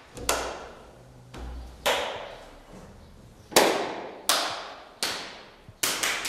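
Single hand claps passed from person to person, about six, one at a time and a second or so apart. Each clap trails a short room echo.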